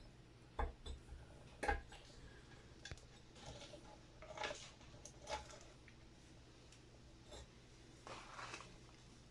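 A few faint clicks and light knocks with soft rustling, over a low steady hum.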